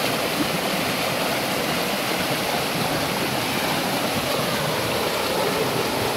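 Shallow mountain river rushing and splashing over a rock ledge in a small cascade: a steady, even noise of flowing water.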